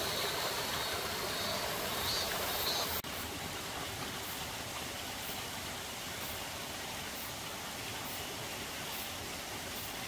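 Streamside water running steadily, an even rushing sound that steps slightly quieter at a cut about three seconds in. Faint high-pitched pulses repeat about twice a second over it.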